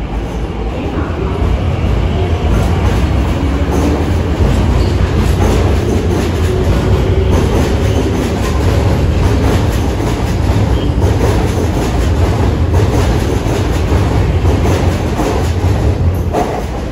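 MTR Kwun Tong Line C-train pulling out of the platform and picking up speed. It makes a loud, steady low rumble with rapid wheel clatter, which falls away near the end as the last car clears.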